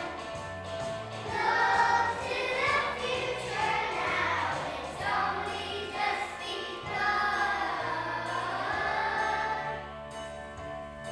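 A children's choir singing a song with instrumental accompaniment and a bass line.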